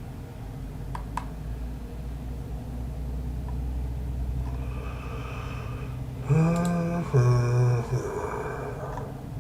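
A man's voice humming two held notes, the second lower than the first, over a steady low background hum, with a couple of faint clicks about a second in.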